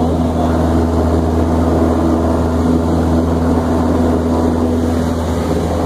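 Light aircraft's piston engine and propeller running steadily in flight, a constant drone heard from inside the cabin.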